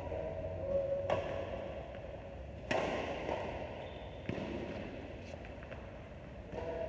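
Badminton rackets striking a shuttlecock, three sharp hits about a second and a half apart, the middle one the loudest, each ringing on in a large echoing hall.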